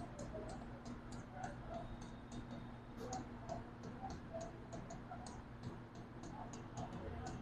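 Faint ticks and light scratches of a marker tip on a writing board, several a second at an uneven pace, as short strokes are drawn, over a faint steady hum.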